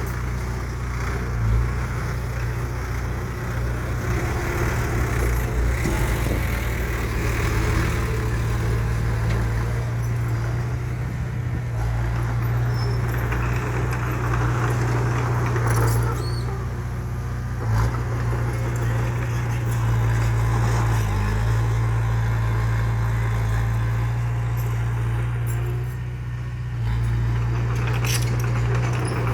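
Heavy diesel engine of an earth-moving machine running steadily with a deep hum, with a few short knocks and clanks.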